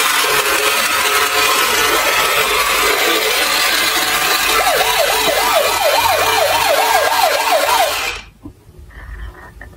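Battery-powered Tonka police toy car playing its electronic sound effects through a small speaker: a harsh, static-like noise, joined about four and a half seconds in by a fast wailing siren of about three swings a second. Both cut off suddenly about eight seconds in.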